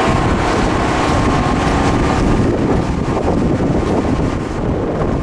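Wind buffeting the microphone: a steady, rough noise heaviest in the low end.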